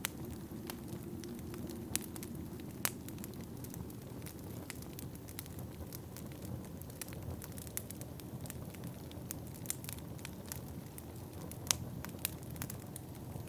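Wood fire crackling in a fireplace: many small irregular crackles and a few sharper pops over a low, steady rumble.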